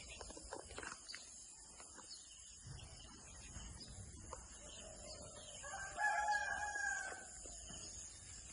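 A rooster crows once, about six seconds in, with a single drawn-out call lasting about a second and a half.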